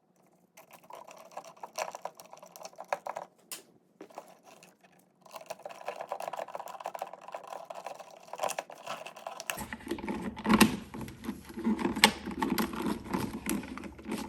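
Hands twisting wire connectors onto the switch's black leads and house wires, making a run of small plastic clicks, scrapes and rattles. The rattle grows denser about five seconds in and louder with some low handling thumps in the last few seconds.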